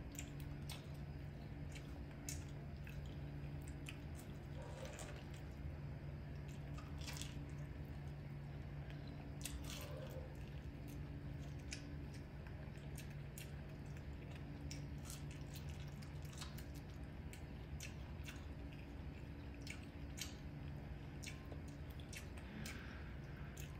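Baby macaque biting and chewing kernels off a corn cob: scattered small sharp crunches and mouth clicks, over a steady low background hum.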